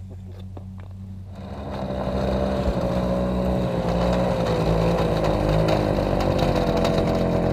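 Ski-Doo snowmobile engine approaching, growing louder from about a second and a half in and then running steadily close by, its pitch wavering a little.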